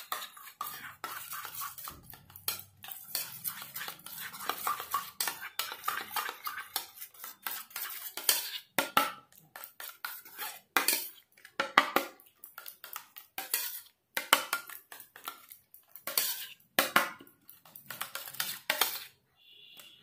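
Metal spoon stirring and scraping around a stainless steel bowl, mixing a thick aloe vera gel mixture: quick, irregular clinks and scrapes, with a brief pause near the end.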